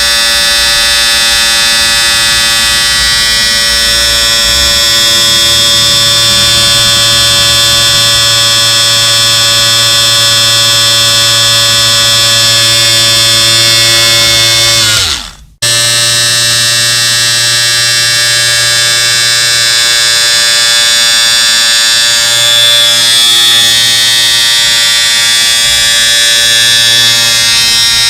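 Electric shaver motor running with a steady, high buzz. About halfway through its pitch sags as it winds down and cuts out for a moment, then it starts again at full speed.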